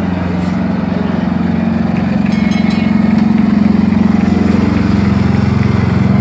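Small engine of a trackless kiddie train ride running steadily with a low, even hum as the train drives along.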